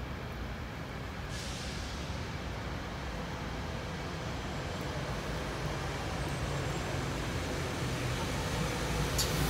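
SEPTA Silverliner IV electric multiple-unit commuter train approaching and drawing alongside, its running noise growing steadily louder. A brief click is heard near the end.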